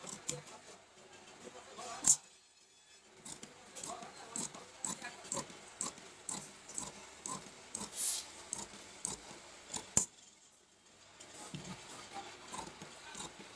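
Large tailor's shears cutting through shirt fabric: a run of short snips, about two or three a second, with two louder clacks of the blades, one about two seconds in and one about ten seconds in.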